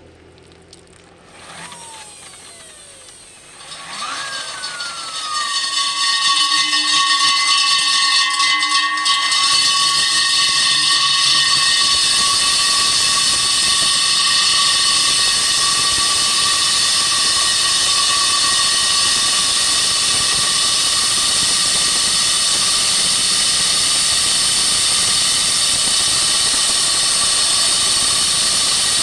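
Concrete core drilling machine's electric motor: two brief spin-ups that wind down in falling whines, then it runs steadily at full speed from about six seconds in with a loud, steady whine and hiss.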